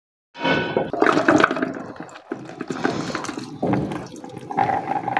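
Boiled chickpeas and their cooking water being poured from a metal pot into a plastic bowl: liquid splashing and sloshing as the chickpeas tumble in. It starts suddenly about a third of a second in.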